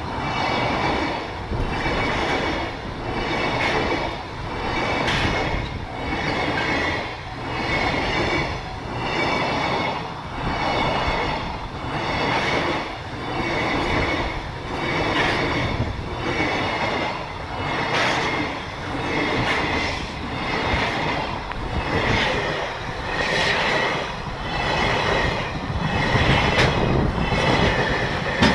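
Freight train of Koki container flat wagons passing close by at speed. The wheels clatter over the rails in a regular rise and fall about once a second as each wagon's bogies go by, with a steady high ringing tone above.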